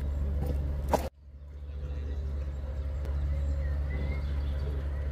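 A steady low machine hum. About a second in there is a sharp click, after which the sound cuts out almost completely and fades back up over the next second.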